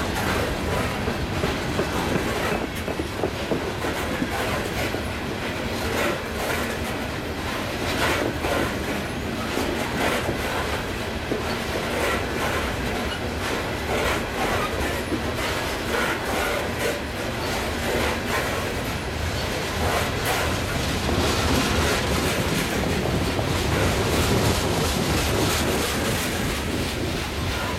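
Freight train hopper cars rolling past at speed: a steady rumble of steel wheels on rail with repeated clicks as the wheels cross rail joints.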